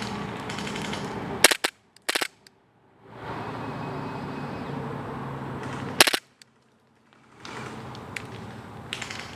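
Airsoft guns firing in short bursts of sharp snapping shots, about a second and a half in, again just after two seconds, and around six seconds in. A steady hiss fills the stretches between the bursts.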